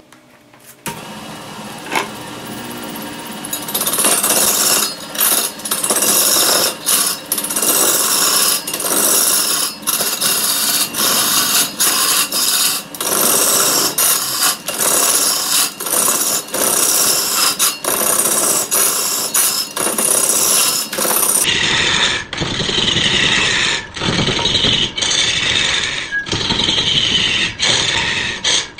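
A wood lathe starts up about a second in, then a hand-held cutting tool is pressed into the spinning bark-covered log, stripping off bark and outer wood. The rough, loud cutting noise breaks off briefly every half second to a second as the tool bites and lifts.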